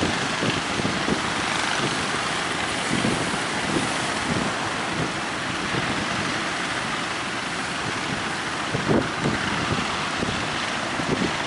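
Strong wind buffeting the microphone over the steady running of a fishing boat's engine and the rush of the sea, with irregular low gusts.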